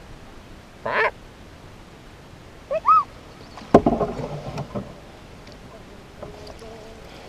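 A young child's short, high calls and a two-note hoot, voiced in play. A sharp knock comes about halfway, followed by about a second of rustling noise.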